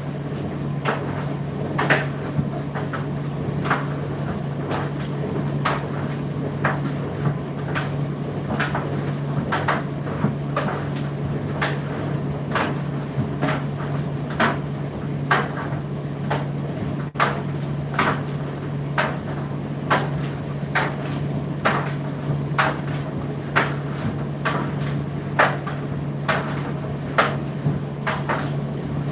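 Indesit IDC8T3 condenser tumble dryer running mid-cycle: a steady low hum from the motor and drum, with irregular knocks about one or two a second as the load tumbles in the drum.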